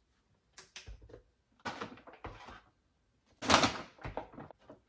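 Supplement containers and a scoop being handled on a kitchen counter while powder is scooped into a plastic shaker bottle: scattered knocks, clicks and short rustles. The loudest is a brief rustling burst about three and a half seconds in.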